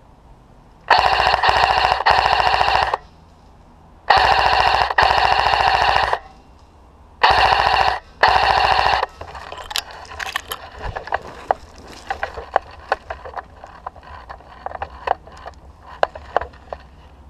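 Airsoft gun firing full-auto close to the microphone in three long strings of rapid shots, each made of a few back-to-back bursts, with a whine running under the shots. After that come scattered sharp clicks and cracks, much quieter.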